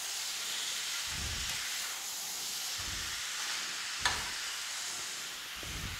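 Potato cubes, carrots and peas sizzling in oil and masala in a metal kadhai while they are stirred with a metal slotted spoon: a steady frying hiss with a few dull knocks from the stirring and one sharp click about four seconds in.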